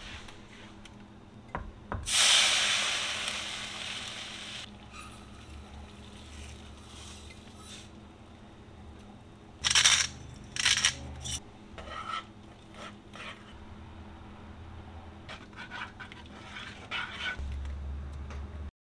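Water hitting a hot nonstick skillet with a loud hiss about two seconds in that fades over a couple of seconds while it comes to a bubbling boil. Around halfway there is a short clatter of a metal measuring cup and grains going into the pan, and near the end chopsticks scrape and tap as the grains are stirred.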